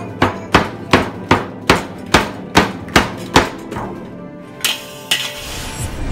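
Toy drum kit beaten with drumsticks in an even beat, about two and a half hits a second, which stops a little past halfway; two more single hits follow, then a rushing noise near the end.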